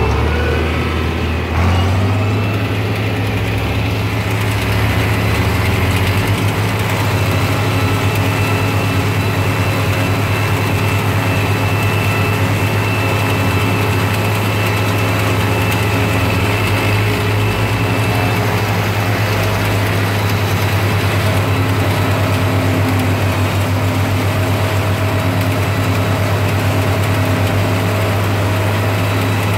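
Tractor engine running steadily under load while driving a Papec one-row forage chopper cutting standing corn, the chopper's cutterhead and blower running with it; the low engine hum picks up about two seconds in.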